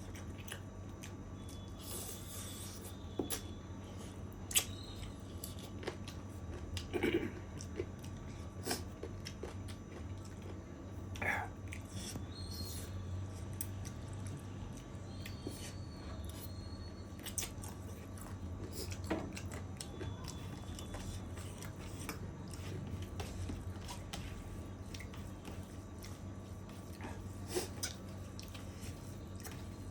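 A person chewing and biting a mouthful of chicken curry and rice, with short, sharp mouth and food sounds now and then over a steady low hum.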